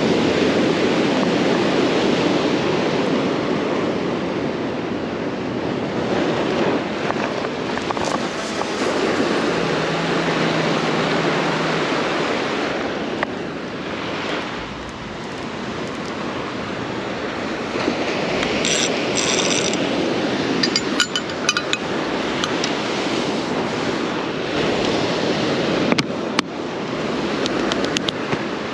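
Ocean surf washing against the shore, swelling and easing, with a few light clinks and clicks toward the end.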